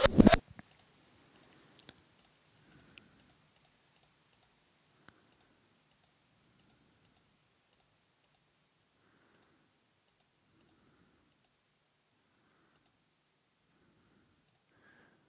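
Computer keyboard clicking: a short burst of loud clicks right at the start, then near silence with faint scattered clicks.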